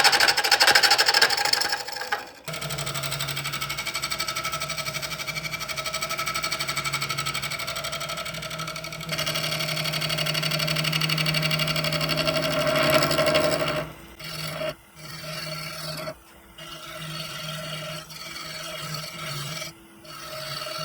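Wood lathe running with a steady motor hum while a tool or abrasive rubs against the spinning wood-and-resin bowl, making a scraping rub. The contact breaks off and on several times in the last third.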